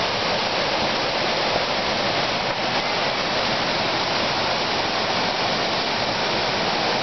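River rapids rushing steadily over rocks, a continuous loud wash of whitewater.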